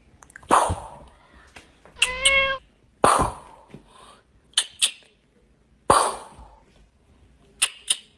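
Ginger kitten meowing once, short, about two seconds in, among three sharp pops spaced a few seconds apart and a few faint clicks.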